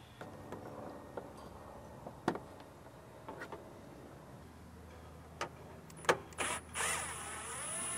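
A few sharp clicks and knocks of parts and tools, then near the end a small cordless power tool's motor whirring for about a second and a half, its pitch wavering, as the bolts holding the grille shroud are taken out.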